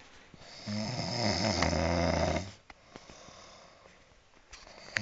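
A person snoring: one long snore starting just under a second in and lasting nearly two seconds, then a quiet stretch before the next snore begins near the end.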